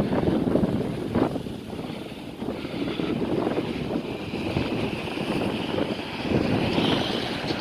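Street ambience: wind gusting on the microphone over road traffic, with a vehicle passing and its hiss building from about three seconds in to a peak near the end.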